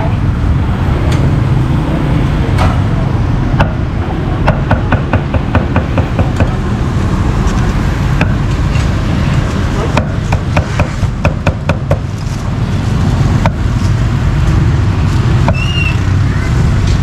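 Cleaver chopping meat in quick runs of sharp knocks, several strokes a second, in bursts of a second or two. A steady low rumble of traffic runs underneath.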